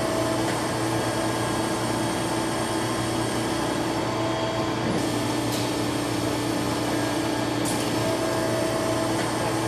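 Steady mechanical hum of powered-up shop machinery, with a faint higher tone that comes and goes and a couple of faint ticks.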